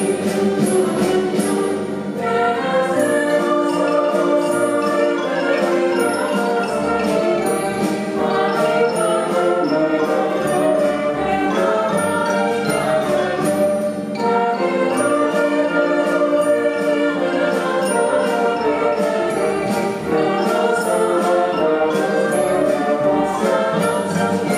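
Orchestra playing an instrumental passage: sustained string and wind chords moving in phrases, with light percussion ticking along on top.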